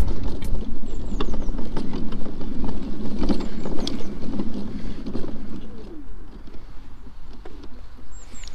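Off-road mobility scooter running over a bumpy grass track, a steady rumbling noise that eases off about six seconds in. A bird calls a few times with short, high, falling chirps.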